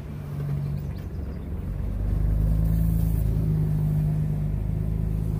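Pickup truck engine running with a steady low hum that grows louder about two seconds in.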